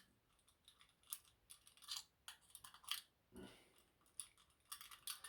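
Faint, scattered metallic clicks and light taps of a lever lock being handled and its mechanism worked as it is relocked. There is a soft knock about three and a half seconds in.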